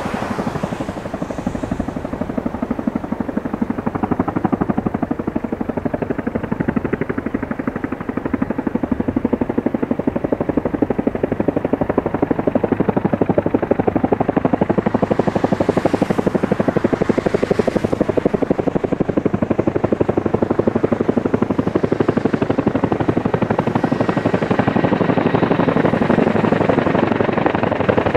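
Boeing CH-47 Chinook tandem-rotor helicopter flying low toward the listener, its rotors beating in a rapid, steady chop that grows gradually louder as it nears.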